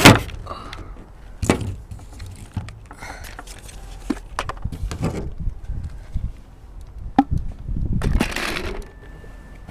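Handling noise: a few separate sharp knocks and clicks, then a longer rattling clatter near the end.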